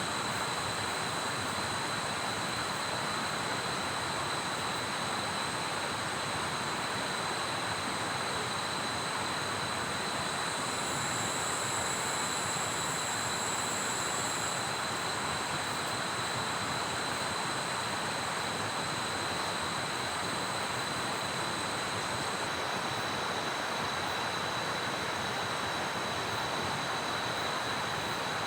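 Heavy rain falling in a forest, a steady, even hiss without let-up, with a thin, steady high-pitched tone above it that strengthens briefly about halfway through.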